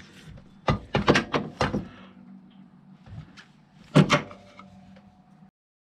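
Several knocks and thumps from a long cardboard parts box and the part in it being handled, with a louder thump about four seconds in; the sound cuts off shortly before the end.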